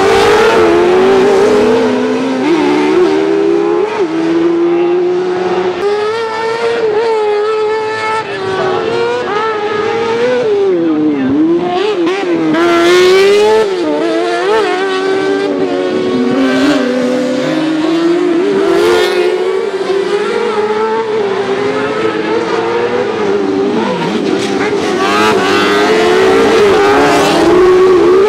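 Several autocross buggies racing, their engines revving up and down continuously as they brake into bends and accelerate out, with high-revving whines swelling as cars come nearer.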